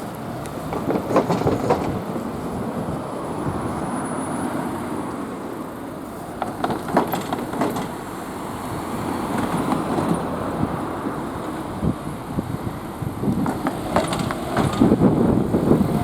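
Konan Railway Owani Line train passing over the level crossing: a steady rolling rumble, with clusters of sharp clacks from the wheels crossing rail joints three times, the loudest near the end.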